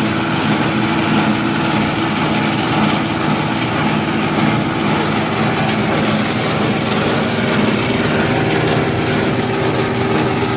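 Rice-husk grinding mill running steadily under load, grinding coarse rice husk into fine bran, a constant machine drone with a steady low hum.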